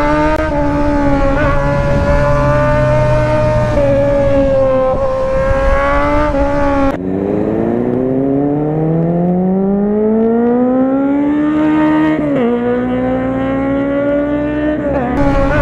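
Motorcycle engine running steadily at cruising speed with a rushing hiss. After a cut about halfway through, an engine climbs steadily in pitch for several seconds, drops suddenly at a gear change and settles to a steady run.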